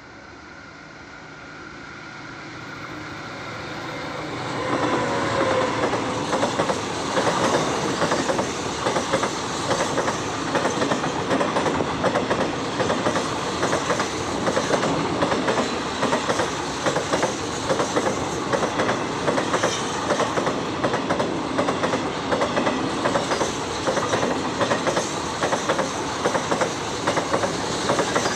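A train hauled by a CSR diesel-electric locomotive approaches and passes, its engine hum growing louder over the first few seconds. The wheels then clatter over the rail joints in a steady, rhythmic clickety-clack as the cars roll by.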